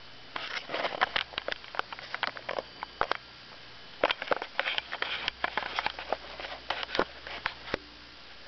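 Pet hedgehog sniffing and snuffling close to the microphone, with many irregular sharp clicks and short breathy puffs.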